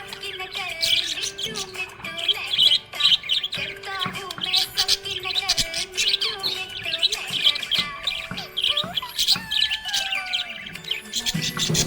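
Budgerigars chirping and warbling in a rapid, continuous stream of high chirps, over background music with a held low note and a wandering melody.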